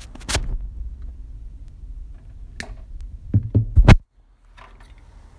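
Handling noise with a few sharp knocks as a CRT neck socket board is set down and moved on a wooden table. The loudest cluster of knocks comes a little after three seconds in, over a low rumble, and the sound drops away abruptly about four seconds in.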